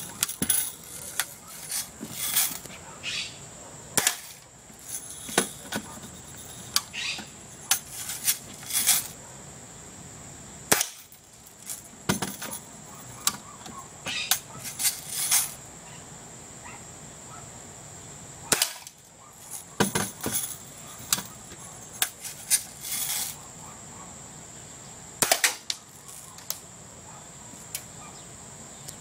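BB gun being fired repeatedly at a can: sharp cracks and hits at irregular intervals, sometimes several close together, with short pauses between bursts.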